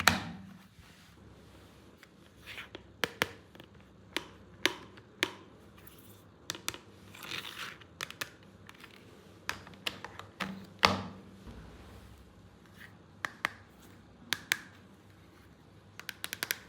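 Hands handling hard plastic toy parts and packaging: scattered clicks and taps, the sharpest at the start and about eleven seconds in, with a short stretch of crinkling around seven seconds in.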